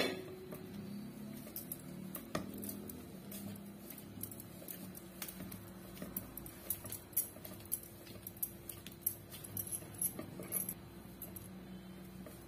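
Hands kneading a ball of oiled dough on a wooden rolling board, with glass bangles clinking lightly and irregularly, over a faint steady hum.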